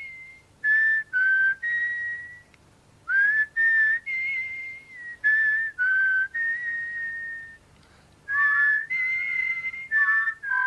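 Human whistling of a tune: short phrases of clear held notes with brief pauses between them. About eight seconds in, a second whistled line sounds together with the first.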